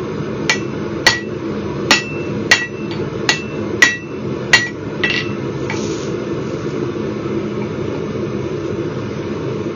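Hand hammer striking steel on an anvil while forging rebar: about nine ringing blows, roughly two a second, that stop about halfway through. A steady low rushing noise runs underneath throughout.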